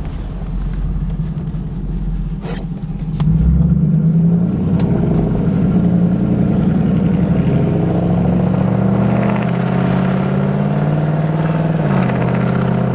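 Straight-piped V engine with a true dual exhaust accelerating gently at low revs, under about 2000 RPM. The deep exhaust note gets louder about three and a half seconds in, climbs slowly in pitch, and drops back near the end.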